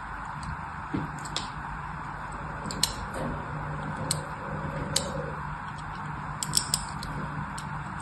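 A thin pointed blade scores lines into a bar of white soap, making a light scratching with sharp, crisp ticks about once a second and a quick cluster of ticks near the end.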